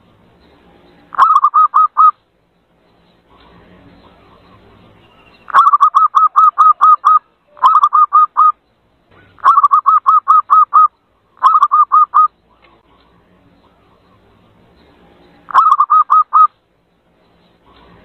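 Zebra dove (perkutut) call used as a lure: short bursts of rapid, evenly repeated cooing notes, six bursts separated by pauses of a second to several seconds.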